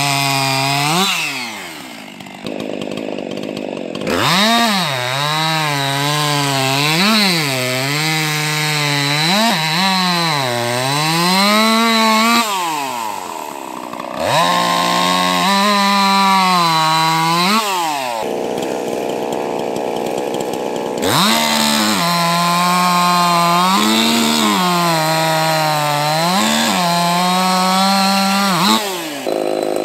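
65cc two-stroke race chainsaws running flat out through a timber cant in a three-cut race, one saw after another. The engine pitch dips and climbs about once a second as the saw bogs in the cut and recovers, with two short breaks between runs.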